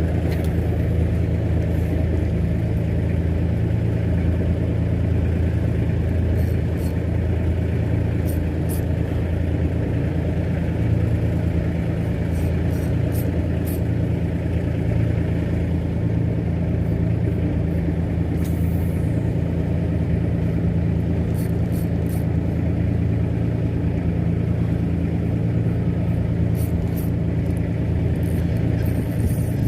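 Fishing boat's engine running steadily, a constant low drone with faint scattered clicks above it.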